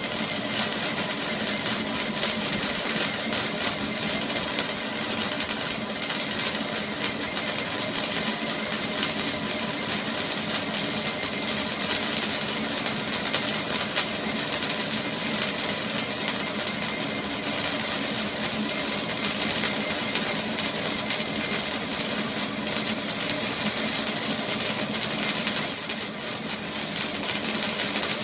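A machine running steadily for the whole stretch: a constant hum under a dense hiss.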